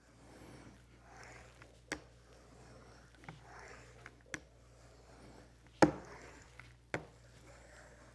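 A J-roller rolled firmly back and forth over plastic laminate laid on contact adhesive, pressing it down onto a plywood base: a series of soft rolling strokes about a second each, with a few sharp knocks, the loudest about two-thirds of the way through.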